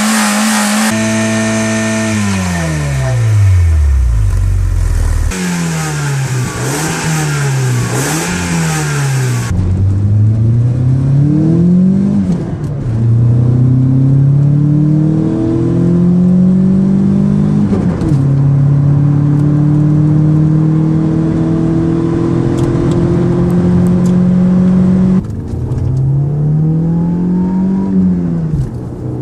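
Volkswagen Golf GTI engine revving, heard in several separate recordings. First the revs fall away steadily, then come a few quick throttle blips. Next it pulls up through the gears: the pitch climbs and drops back twice at the upshifts, then holds steady. Near the end the revs rise and fall once more.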